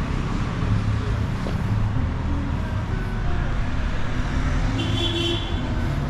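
Road traffic noise with a vehicle engine running steadily underneath, and a brief high-pitched beep about five seconds in.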